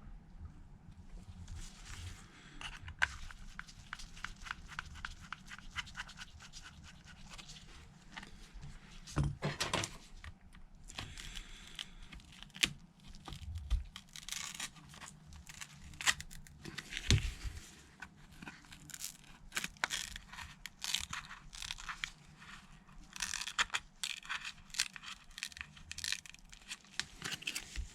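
Small hand tools working on a smashed iPhone 11: irregular light clicks, scraping and crackling as the display is pried away from the frame.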